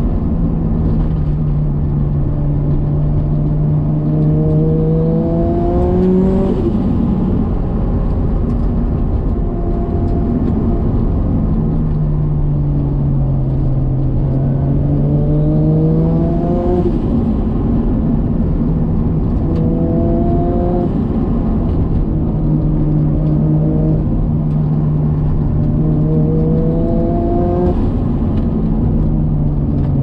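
Turbocharged RB25DET straight-six of an R33 Nissan Skyline heard from inside the cabin on a mountain drive, over steady road noise. The engine pulls three times, its pitch climbing through the revs and then dropping back.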